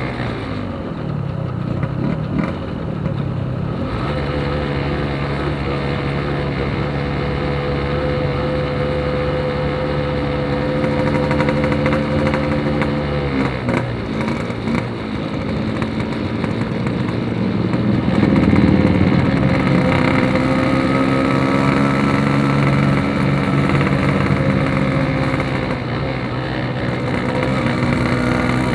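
Yamaha RX-King's two-stroke single-cylinder engine running through a Packing Power aftermarket exhaust, a loud, slightly bassy note. It holds steady, shifts about halfway through, and grows louder at a higher pitch about two-thirds of the way in.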